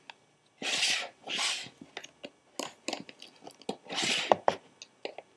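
Plastic gummy-candy mold being opened and handled: three longer scraping, rustling rubs with many small clicks between them.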